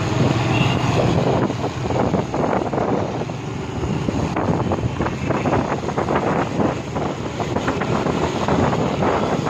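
Wind buffeting the microphone over a steady low rumble from a moving vehicle.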